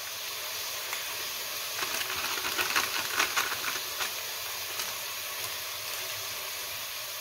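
Sliced leeks and celery sizzling in oil in a pot, a steady hiss. About two to four seconds in comes a run of crackly rustles as grated parmesan is shaken out of a plastic packet into the bowl.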